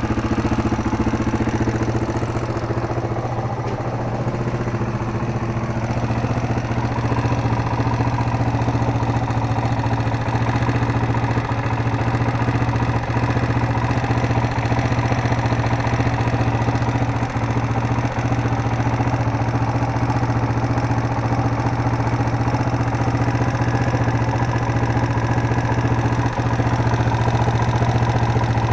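A 1999 Yamaha Serow's air-cooled single-cylinder four-stroke engine idling steadily, with the valve noise the mechanic puts down to valves that just need adjusting.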